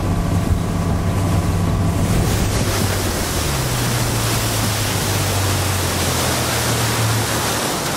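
Bass boat's outboard motor running at speed with a steady low drone, under a loud rush of wake water and wind on the microphone. The engine note shifts about three and a half seconds in.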